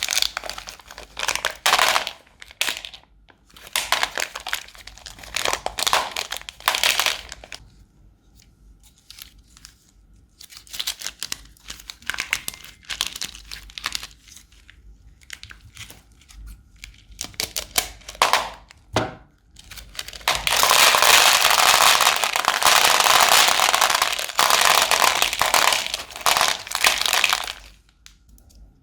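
Crunchy slime being squeezed and worked in plastic piping bags, crackling and crinkling in uneven bursts, then in a dense, steady run for several seconds near the end.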